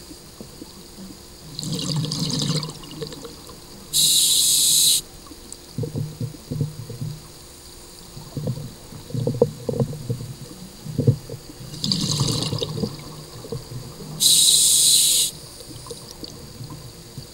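Scuba diver breathing through a regulator underwater: two sharp hisses of air of about a second each, about four seconds in and again near the end, with rushing, gurgling exhaust bubbles between them.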